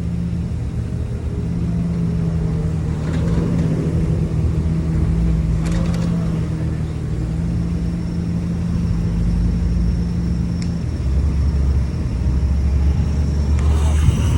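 An engine running steadily, a loud low drone with a steady hum, with a short knock or clatter near the end.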